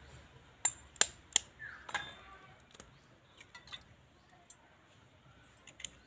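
A hen's egg tapped sharply three times against the rim of a stainless steel bowl to crack it. This is followed by a few lighter clicks of the shell as it is broken open and the egg drops into the bowl.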